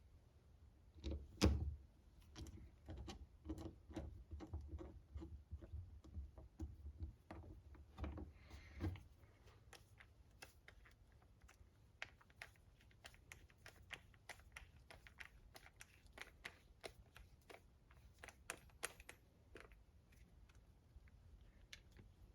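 Faint, irregular clicks and taps of small hand tools and metal parts being handled while an RC car transmission is put back together, busiest in the first half.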